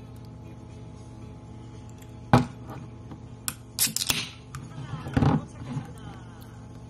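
A can of Sprite being handled and cracked open: a sharp knock about two seconds in, then a click of the pull tab and a brief fizzing hiss of carbonation around four seconds in, followed by another knock of the can a second later.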